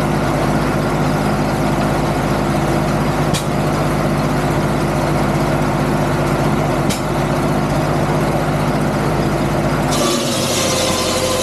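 Antique circular saw rig running steadily with an even mechanical hum and a sharp tick every three or four seconds. About ten seconds in the blade bites into the wooden block: a bright hissing cut rises over the hum and the running note sags a little under the load.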